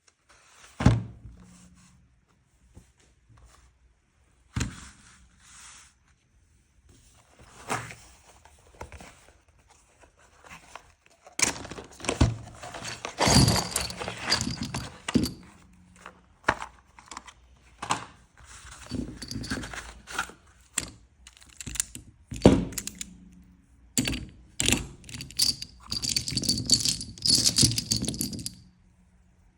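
Rifle cartridges handled on a hard surface: scattered sharp knocks as rounds are set down, and two longer stretches of metallic clinking and rattling, one about halfway through and one near the end.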